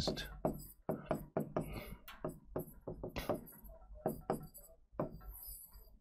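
A pen writing and circling words on a board: a run of irregular light taps and short scratchy strokes.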